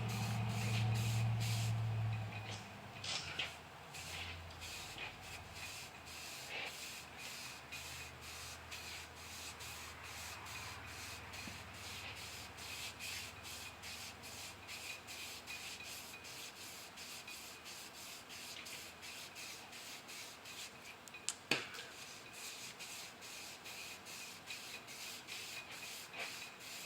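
A shoestring coated in valve lapping compound rubbed rapidly back and forth around an LS crankshaft journal, polishing it in a steady stroking rhythm. A low hum fades out about two seconds in, and a single sharp click comes near the end.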